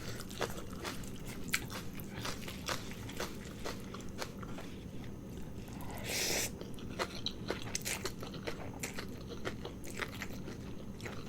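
Close-miked chewing and biting of a spicy noodle dish, with many irregular crunchy clicks from mouthfuls of crisp vegetables and meatballs. A brief hissing rush about six seconds in.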